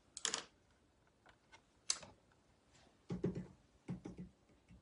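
Faint, scattered small clicks and a few soft, low knocks from a painted porcelain plate being handled and turned on a woven mat.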